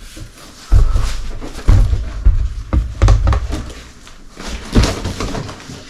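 Packaging being shifted and moved aside during an unboxing: a run of heavy thumps and bumps with handling noise between them, several in the first half and one more near the end.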